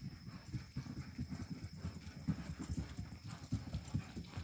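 Quick, even hoofbeats of a Colombian paso fino colt being ridden in its four-beat gait. The hooves land on a soft dirt floor, so the beats come as dull low thuds.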